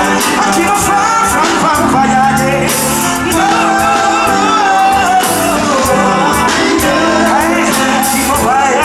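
Live reggae band playing, with the lead singer's voice carried over the band through the PA.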